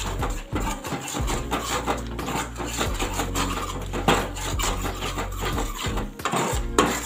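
Metal ladle stirring and scraping through thick gravy in a metal pan, with irregular clinks against the pan. There is a sharper knock about four seconds in and another near the end.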